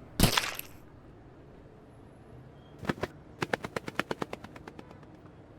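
A sharp bang with a short ringing tail, then two clicks and a quick run of clicks, about nine a second, fading out: cartoon sound effects.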